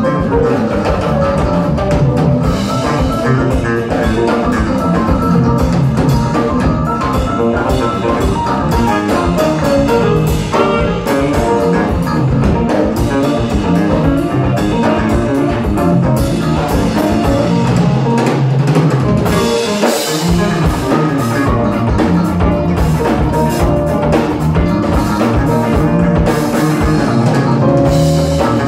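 Live jazz-funk band jamming: electric bass, electric guitar and drum kit playing a steady groove. There is a brief break about twenty seconds in.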